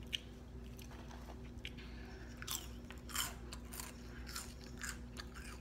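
Crunching and chewing of hot Cheetos: a string of irregular crisp crunches as the puffed corn snacks are bitten and chewed, over a faint steady hum.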